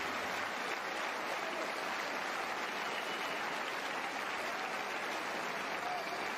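Tennis crowd applauding steadily at the end of the match, with a few faint voices rising out of the clapping.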